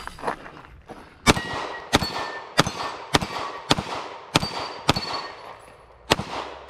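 Walther PDP Compact pistol fired eight times in a quick string, roughly a shot every half to two-thirds of a second with a longer pause before the last, and steel plate targets ringing with a metallic clang as they are hit.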